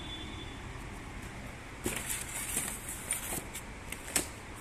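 Cardboard box and polystyrene packing being handled: rustling with a few sharp knocks and clicks, starting about two seconds in.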